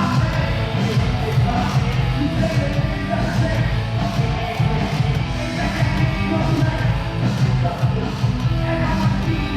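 Loud hip-hop music with a heavy bass and a steady beat, with vocals over it.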